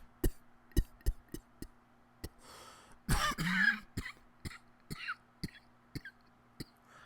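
A man coughing and clearing his throat, with a longer hacking cough about three seconds in, among a run of short sharp clicks.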